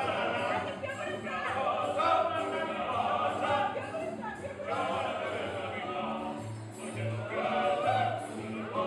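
A group of men singing a serenade together, in the Greek kantada manner, to strummed guitars with a repeating bass note underneath.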